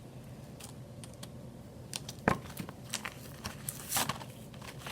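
Scattered small clicks, taps and crinkles of a pack of replacement batteries being handled and picked at, with a sharper click a little past two seconds in and a cluster of clicks near the end.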